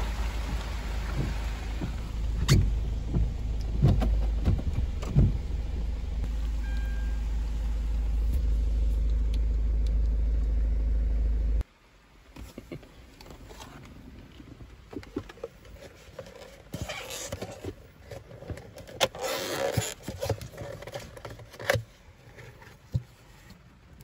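Low, steady rumble of a car driving, heard inside the cabin, with a few knocks over the first five seconds; it cuts off sharply about twelve seconds in. After that it is much quieter, and a paper pastry box is handled and opened, with bursts of rustling and a sharp click near the end.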